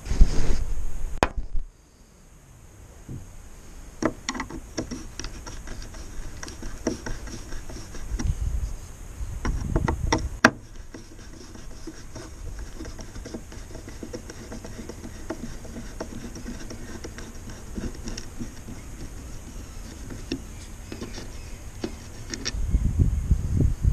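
Hand screwdriver turning screws into a metal flashing strip on a window frame: many small clicks and scrapes, with louder low rumbling at the start, about nine to ten seconds in, and near the end.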